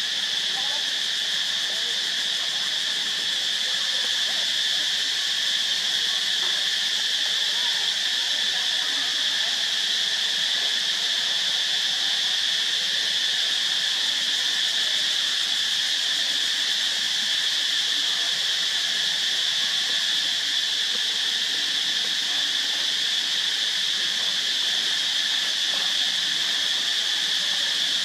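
Steady, high-pitched insect chorus: a continuous shrill drone at two fixed pitches that never breaks.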